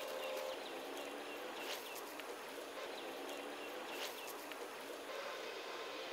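Rural outdoor ambience: a steady background hiss with short bird chirps now and then, the clearest about two and four seconds in.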